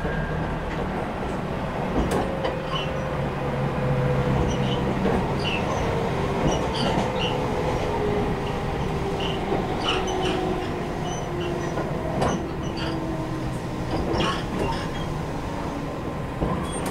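Running sound inside a JR Kyushu 811 series motor car as the train slows: a motor whine falls steadily in pitch under the wheel and rail rumble. Scattered clicks come from the wheels passing rail joints.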